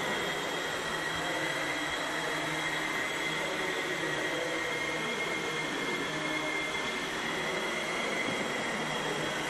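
Battery-powered electric motor and propeller of a small RC Tiger Moth biplane model whining steadily in flight, the pitch sagging slightly in the middle and rising again near the end.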